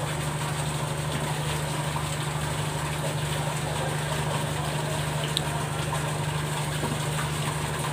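A large engine idling steadily: a constant low hum with an even, pulsing throb beneath it.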